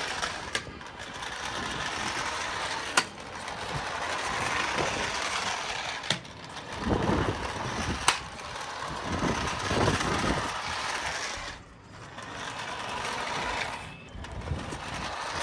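Toy remote-control car's small electric motor whirring as it drives in spurts, speeding up and easing off, with a few sharp knocks.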